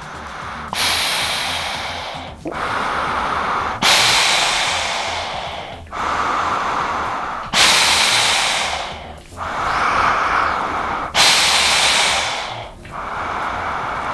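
Deep, slow breaths in and out through a silicone face mask with filter valves: eight airy rushes, four full breaths, each in or out lasting about one and a half to two seconds. The airflow is unrestricted, as the wearer describes it.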